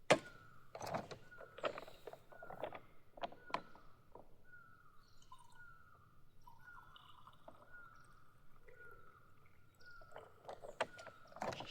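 A bird repeating a short, slightly falling note about three times every two seconds, over sharp knocks and clatter of things being handled. The clatter is busiest in the first few seconds and again near the end.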